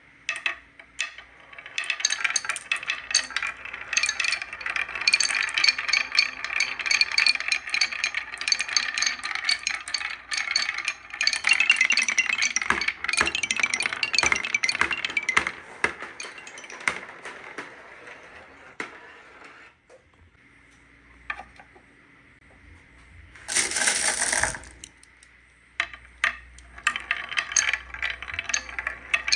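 Many marbles rolling and clattering down a wooden marble run, a dense stream of rapid clicks and clinks that thins out and pauses before a short rushing burst, then clicking resumes near the end.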